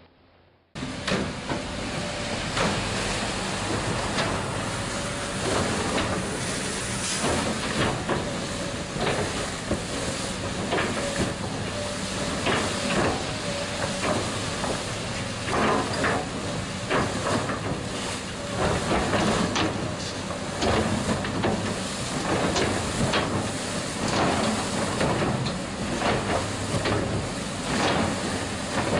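Heavy snow-removal machine working: a steady engine under a loud rushing hiss, with many short scrapes and knocks. It starts suddenly about a second in.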